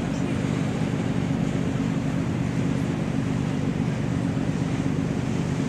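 Steady low drone of a river motor ship's diesel engine, with a rush of water and wind.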